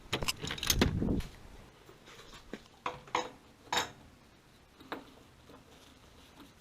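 Metal clinking and knocking as hard objects are handled: a quick flurry of knocks in the first second, then about five separate clinks over the next few seconds.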